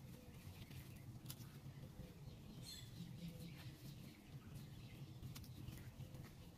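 Faint outdoor ambience: a steady low rumble with a few soft clicks and rustles from handling plants, and a faint bird chirp.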